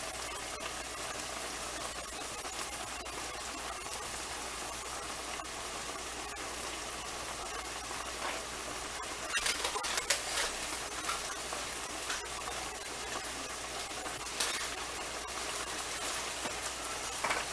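Ground beef frying in a skillet: a steady sizzling hiss, with a cluster of sharper pops and crackles about nine to eleven seconds in and single pops later on.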